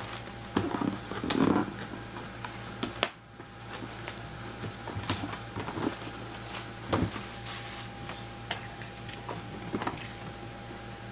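Hands handling a cardboard hobby box as it is opened: scattered light clicks, scrapes and rustles of cardboard, busiest in the first second or so. Under them runs a steady electrical hum.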